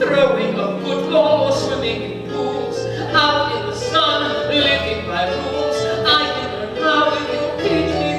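A song: a singer holding long, sustained notes over instrumental accompaniment with steady bass notes.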